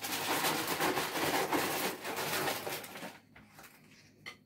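Crinkling and rustling of the plastic sleeve in a box of cookies as a hand digs wafers out of it, for about three seconds, then fading, with a small click near the end.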